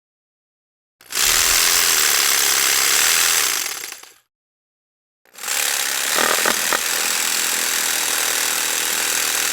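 Jigsaw running in two bursts: it starts about a second in, runs for about three seconds and winds down, then after a second of silence starts again and keeps running, with a few sharp rattles shortly after the restart.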